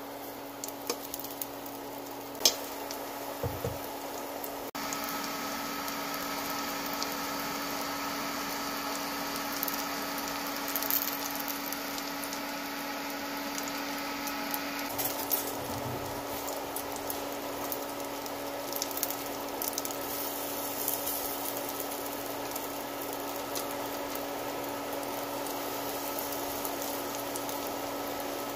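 Elm-seed pancakes frying in hot oil in a nonstick pan: a steady sizzle that grows louder about five seconds in, over a low steady hum, with a few faint clicks.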